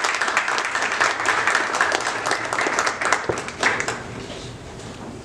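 Audience applauding, a dense, steady clapping that thins out and dies away about four seconds in.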